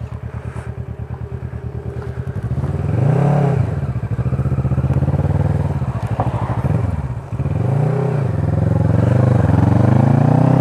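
Motorcycle engine pulsing at low revs, then accelerating. Its pitch climbs and drops back several times as it shifts up through the gears.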